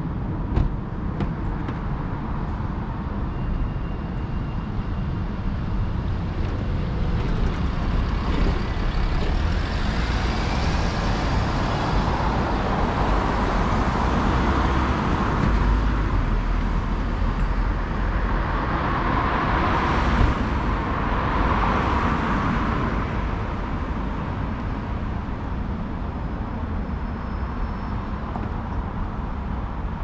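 Road traffic at night: a steady low rumble of engines and tyres, with vehicles passing close by and swelling then fading twice around the middle. A single sharp tap sounds just after the start.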